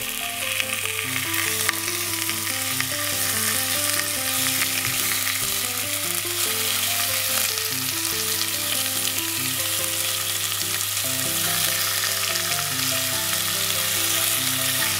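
Sliced pork belly sizzling steadily in hot sesame oil in a pot, being pushed around and turned with chopsticks.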